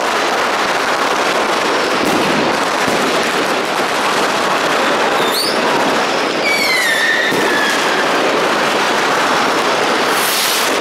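Dense, continuous crackle of firecrackers and fireworks going off all around. About halfway through there is a short rising whistle, then a falling whistle from a whistling firework, and a loud bang near the end.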